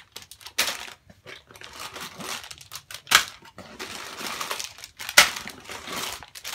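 Plastic packaging crinkling and rustling in irregular bursts as hands rummage through it, with two short, louder crackles about three and five seconds in.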